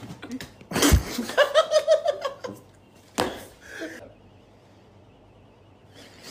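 Laughter: a loud burst about a second in, then a quick run of short laughing pulses, and a brief sharp sound near three seconds in.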